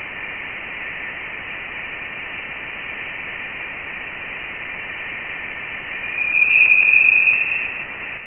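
Spacecraft radio recording converted to sound: a steady static hiss with a few faint steady tones in it. It swells louder about six seconds in, then cuts off suddenly.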